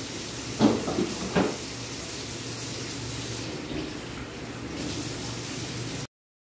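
Steady hiss with a low hum underneath, broken by three short knocks about half a second to a second and a half in; it cuts off abruptly near the end.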